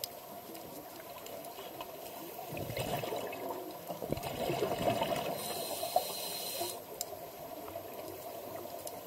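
Underwater scuba breathing: a diver's exhaled bubbles bubble out from the regulator about two and a half seconds in, then a hissing inhalation through the regulator follows around the middle, with quieter water before and after.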